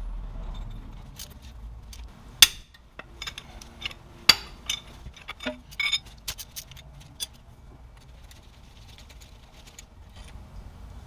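Sharp metallic clinks and taps of a long socket extension and wrench against a transmission output flange and its center bolt. The two loudest come about two and a half and four and a half seconds in, with lighter clicks until about seven seconds in.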